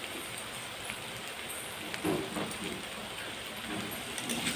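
Diced carrots and onion sizzling in hot oil in a kadai: a steady, even hiss. A steel spatula stirs the vegetables near the end.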